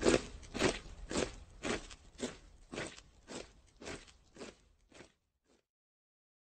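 Closing sound of a metal track: a regular crunching beat, about two a second, fading away over about five seconds.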